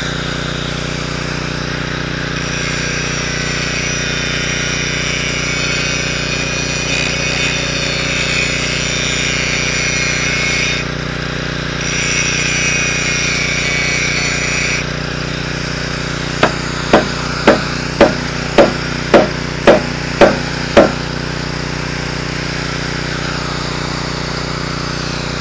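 Arc welding on a steel I-beam anchor: the arc crackles and sizzles in two long runs, with a short break about 11 seconds in. Then come nine sharp metal strikes about two a second, with a steady low engine hum underneath.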